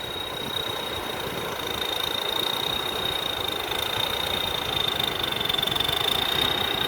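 A Somboon Pattana combine harvester's 260 hp engine and threshing machinery running steadily, with a constant high-pitched whine over the engine. It grows slightly louder about two seconds in.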